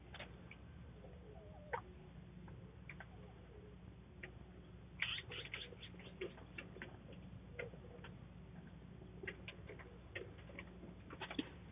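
Chickens in a coop heard faintly: scattered soft clucks and short clicks, with a quick cluster of them about five seconds in and another near the end, over a steady low hum.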